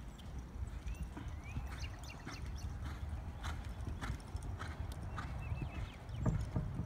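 A horse's hooves striking the ground in a steady, even beat as the mare moves.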